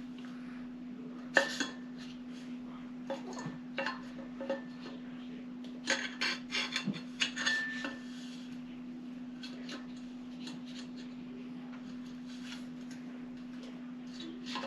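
Tethrd One carbon-fiber climbing sticks clicking and clattering as they are handled and fitted together for stacking: a sharp click about a second and a half in, a few more, and a quick run of clatter from about six to eight seconds, then only faint ticks. A steady low hum runs underneath.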